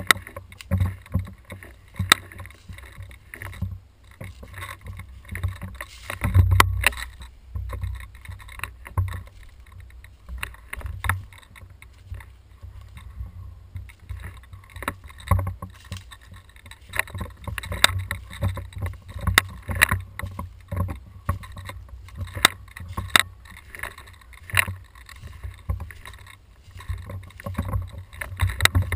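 Handling noise from a camera mounted on an airsoft rifle as the player moves through woodland: a low rumble with irregular knocks and the crunch of steps on leaf litter and twigs.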